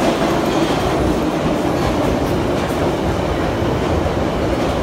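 London Underground Piccadilly line train pulling into an underground platform, a steady loud rumble of wheels on rails.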